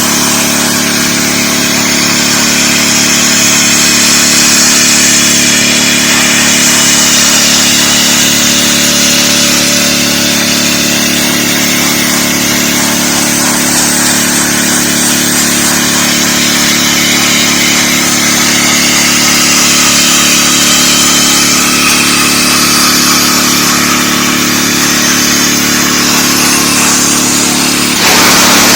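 Dewalt 3600 psi gas pressure washer running steadily under load, its engine hum beneath the continuous hiss of the high-pressure water spray. The sound shifts abruptly just before the end.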